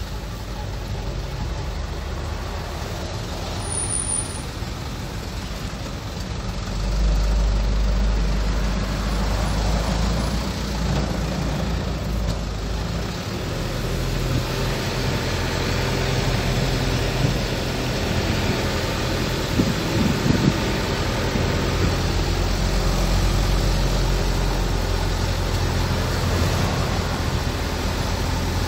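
Steady road and engine noise inside a moving car's cabin: a low rumble that grows louder about seven seconds in.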